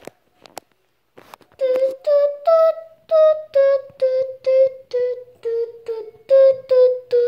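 A child's voice making a quick run of short, repeated pitched vocal sound effects, about two and a half a second, starting a little over a second in. A few faint clicks and knocks of plastic toy figures being handled come before it.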